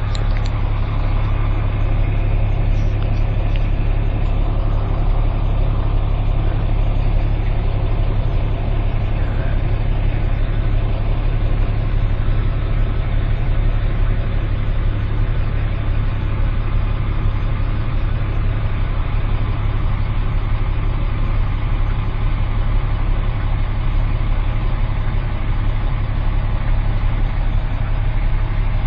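Truck engine running with a steady low drone, heard from inside the cab.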